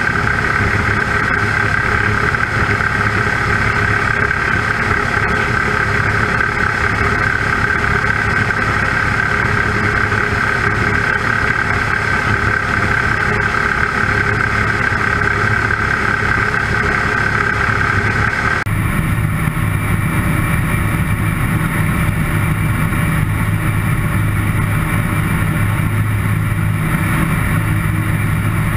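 Homebuilt light aircraft's engine and propeller running steadily in cruise flight, mixed with wind rush over the airframe. About two-thirds of the way through, the drone changes abruptly from a strong mid-pitched hum to a deeper one.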